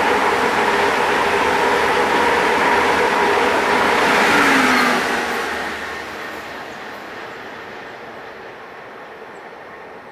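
A Deutsche Bahn ICE high-speed train runs through the station at speed, a loud steady rush of wheels and air. Near the end of its pass, about four to five seconds in, a tone falls in pitch as it goes by. The noise then fades steadily as the train moves away.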